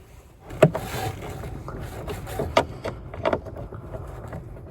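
Irregular clicks and knocks of parts being handled under a car dashboard, over a steady rushing noise that starts about half a second in.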